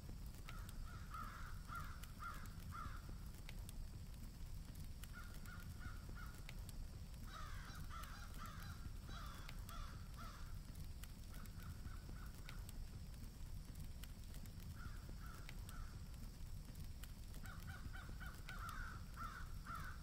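Crows cawing in several series of short, quickly repeated caws with pauses between them, over a steady low rumble.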